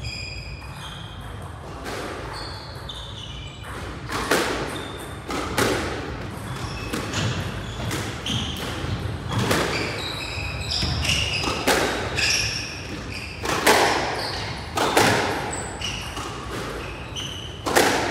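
Squash rally: the ball striking rackets and the court walls at uneven intervals about a second apart, with short high squeaks of shoes on the court floor between the hits.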